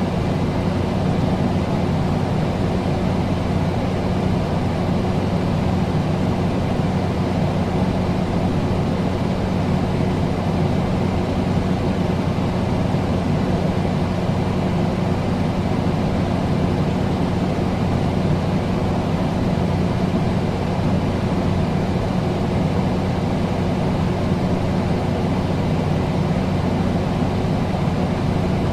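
Air conditioner running steadily: an even rushing of air with a low hum from its motor.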